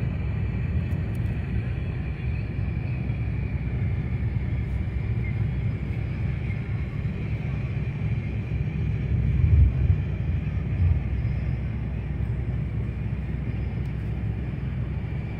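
Steady low rumble of a bus on the move, heard from inside: engine and road noise with a faint steady whine. Two low thumps come a little past the middle.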